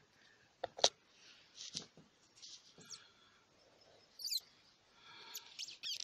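Faint handling noises as a tissue is pulled from its box and a plastic bottle of isopropyl alcohol is handled to wet it for cleaning a bare optical fibre. There are a few sharp clicks and soft rustles, and a short high squeak a little past the middle.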